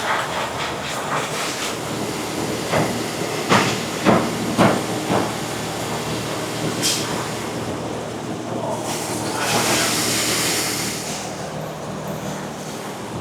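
Factory machinery running steadily, with several sharp clacks in the first few seconds and two stretches of hiss, like bursts of compressed air, in the second half.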